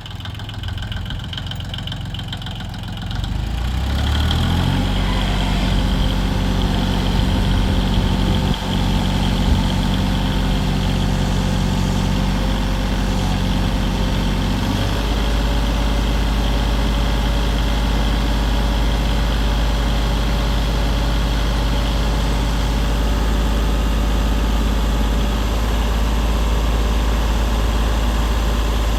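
John Deere 850 tractor's three-cylinder diesel engine running. It runs quieter at first, picks up to a higher, louder steady speed about four seconds in, steps up slightly again about halfway, and then holds steady.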